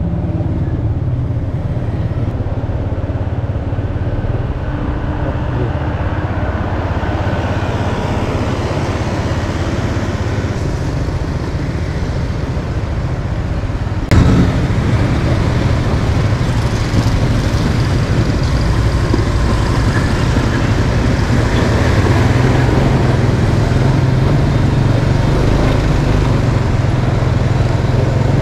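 Motorbike engine running steadily while riding through town traffic, with road noise throughout. There is a sudden break about halfway through, after which the noise is slightly louder.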